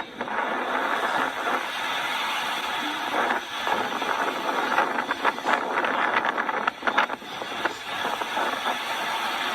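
Hurricane-force wind rushing and buffeting the microphone in a steady loud roar, easing briefly a few times.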